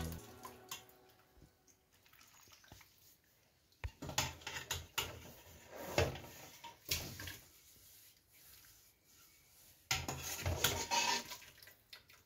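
Metal spoon clinking and scraping against an earthenware couscous dish while vegetables are arranged on the couscous, in three short bouts about four, six and ten seconds in.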